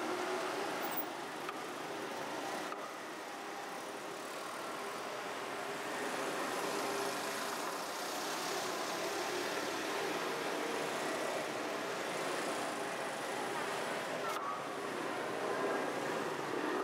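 Steady road traffic noise, vehicles running past in a continuous hum.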